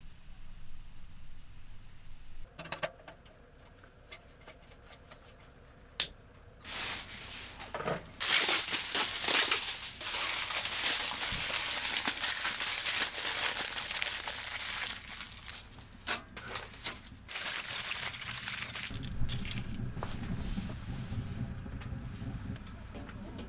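Aluminium foil handled and crumpled by hand, with a loud crinkling rustle for about ten seconds, preceded by a few scattered clicks. A low steady rumble comes in near the end.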